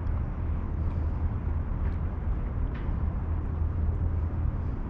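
Steady low outdoor rumble with a few faint ticks, the kind a breeze or distant traffic makes on a phone microphone.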